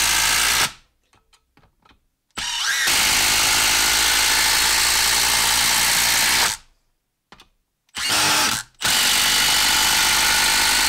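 Milwaukee 1/4-inch cordless impact driver hammering long screws into a log, one after another. A run stops about half a second in. After a short pause with faint clicks it drives another for about four seconds, then gives a brief burst, and from about nine seconds on drives the next screw steadily.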